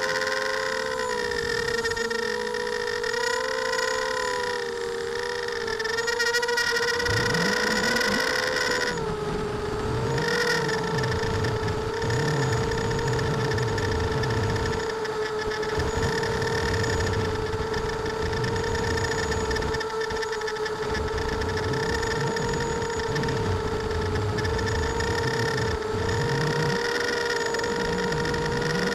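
ImmersionRC Vortex FPV racing quadcopter's electric motors and propellers whining at cruise, heard through its onboard camera, with a shifting low rumble beneath. For about the first nine seconds the pitch wavers as the motors change speed, then it holds steady.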